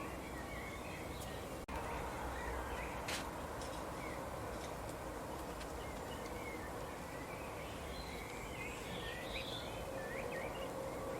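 Birds chirping in many short, quick calls over a steady background hiss.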